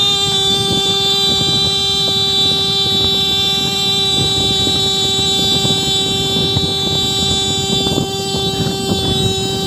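A horn sounding in one long blast held at a single steady pitch for nearly ten seconds.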